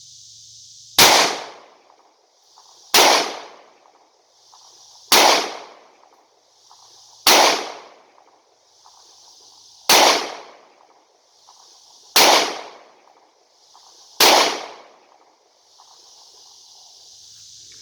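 Seven shots from a Smith & Wesson M&P9 Shield 2.0 9mm pistol firing 115-grain full metal jacket rounds. They come as slow aimed fire about two seconds apart, each shot dying away in under a second.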